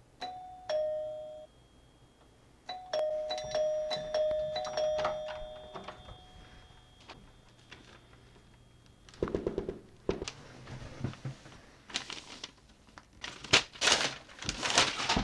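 A two-note ding-dong doorbell chime sounds once, then rings again several times in quick succession. From about nine seconds in, wrapping paper is ripped and torn off a gift box in loud, irregular tears.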